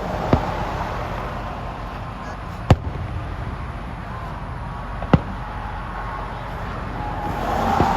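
Fireworks exploding: three sharp single bangs about two and a half seconds apart, over a steady background hubbub.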